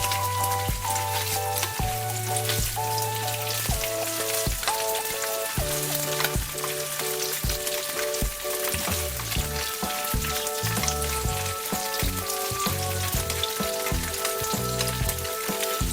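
Food sizzling and crackling as it fries in a pan, with a light background melody playing over it.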